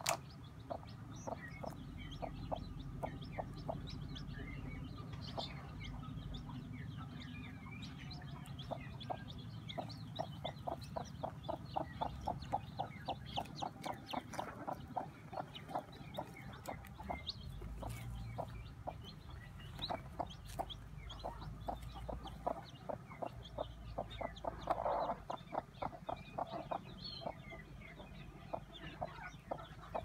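Broody mother hen clucking in a long, fast series of low clucks, several a second, with brief pauses.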